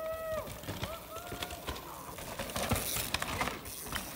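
A bird calling: several short, harsh calls of steady pitch in the first second and a half, one overlapping the next.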